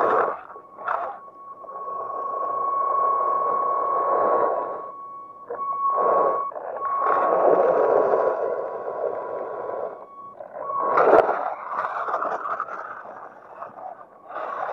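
1/16-scale RC rock crawler's electric drive motor and gearbox whirring in surges as it tows a second crawler on a rope, with a steady high whine beneath. A sharp knock about eleven seconds in.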